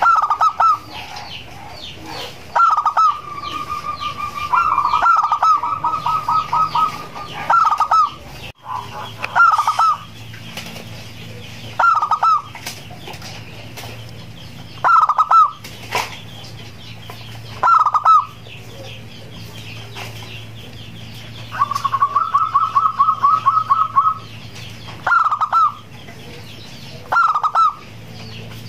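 Zebra dove (perkutut) cooing: short phrases repeated about every two seconds, with two longer runs of quick staccato notes, one a few seconds in and one about three-quarters through.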